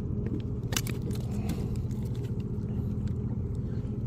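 Boat motor running with a steady low hum, with a few sharp clicks and knocks over it.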